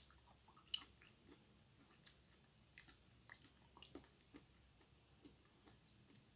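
Faint, close-miked chewing of raw pork liver: soft wet squishes and small mouth clicks at irregular moments.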